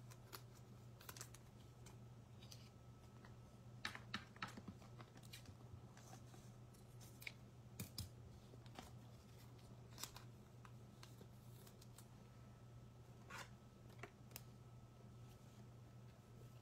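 Faint, scattered clicks and scrapes of trading cards being handled and sorted, over a low steady hum.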